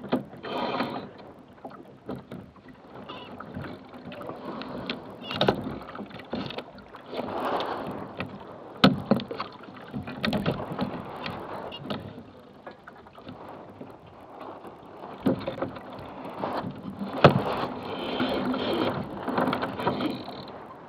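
Water sloshing and lapping against a small sailboat's hull as it drifts slowly, with sharp knocks and rattles from the boat's fittings and rigging several times.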